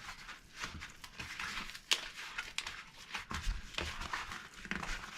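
Cardboard being creased and bent by hand, giving irregular crinkling and creaking crackles with a few sharp snaps, the loudest about two seconds in.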